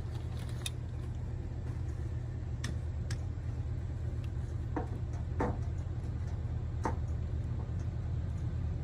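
Low, steady rumble of an approaching freight train's diesel locomotives, still far off and growing slowly louder, with a few short chirps or clicks over it.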